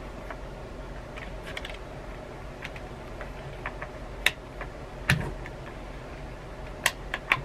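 Plastic water bottle's lid being worked by hand: scattered sharp plastic clicks, a few louder ones, and a duller knock about five seconds in.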